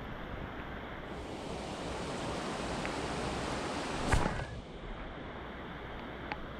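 Steady rush of river water, swelling slightly for a few seconds, with one sharp knock about four seconds in.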